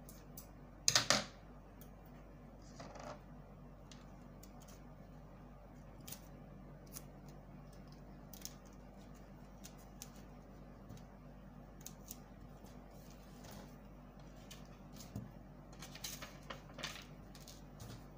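Paper sleeve pattern being handled and creased flat: a loud rustle about a second in, a smaller one around three seconds, then scattered light taps, and a couple of louder rustles near the end, over a steady low hum.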